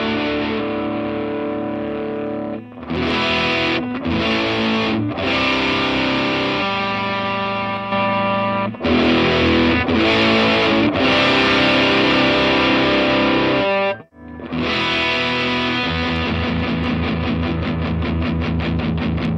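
Electric guitar with humbucker pickups played through a Supro Delta King 12 tube combo amp with its drive on. Distorted chords ring out, with short breaks between phrases, then a fast, evenly picked rhythm starts about two-thirds of the way in.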